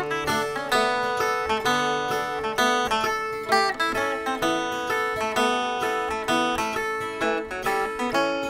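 Background music on acoustic guitar, plucked notes following one another quickly over a held low tone.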